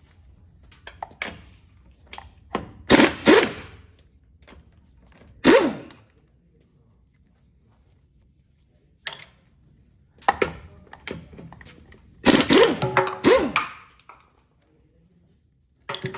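Bursts of metallic knocks and clatter from a socket wrench being worked on the wheel's lug nuts, each burst about a second long with quiet gaps between.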